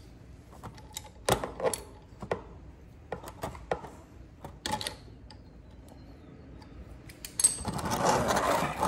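Socket ratchet clicking in short irregular runs as it loosens the 10 mm gearbox drain plug on a GY6 scooter engine, then a louder rushing noise for about a second and a half near the end.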